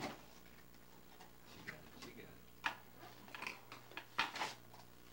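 Scattered light clicks and knocks of small objects being handled on a tabletop, over a faint steady low hum.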